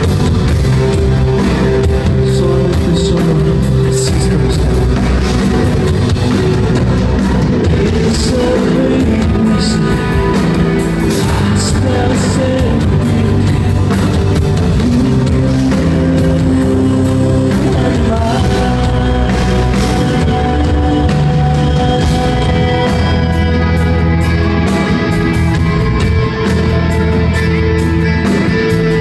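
Live rock song played through a concert PA: a man singing lead vocals over acoustic guitar with band accompaniment, heard in a large hall.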